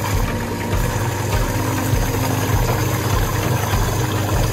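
Electric mixer with a safety cover running steadily, its motor humming as it beats chocolate soufflé batter while eggs are added.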